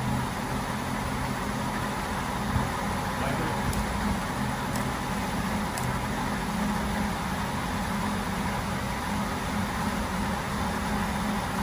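1965 Ford Mustang's 289 V8 idling steadily.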